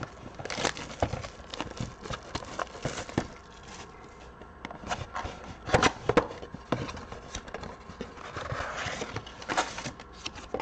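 Cardboard trading-card mega box being opened by hand and its packs pulled out. There are irregular taps, knocks and scrapes of cardboard, with a longer rubbing, rustling stretch near the end.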